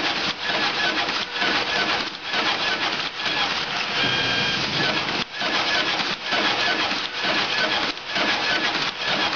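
Automatic business card cutter running: a steady mechanical clatter from its feed rollers and slitting heads, broken by a short dip about once a second as it cycles.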